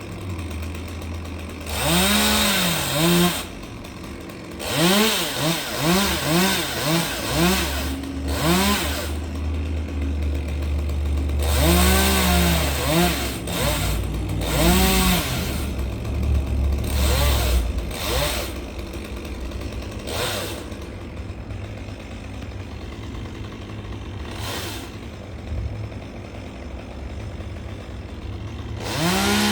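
Chainsaw revving up and dropping back in repeated short bursts. For roughly the last third it runs quieter and steadier.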